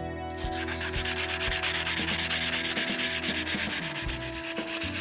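150-grit sandpaper rubbed by hand over a damaged outboard propeller blade in quick, even back-and-forth strokes, smoothing out nicks and burrs.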